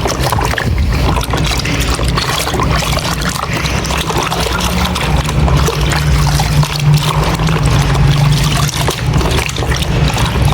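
Water pouring and trickling as a dirty plastic toy is washed in a bucket of water.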